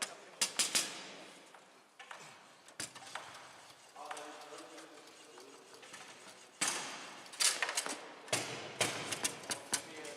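Foosball being played on a Bonzini table: sharp clacks of the ball being struck by the players' figures and knocking off the table walls, in quick clusters about half a second in, once near three seconds, and again through the last few seconds.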